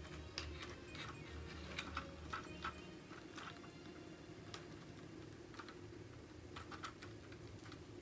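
Light plastic clicks and rattles from a ring light stand's phone mount and pole being handled and fitted together: irregular sharp clicks, thickest in the first few seconds and again near the end.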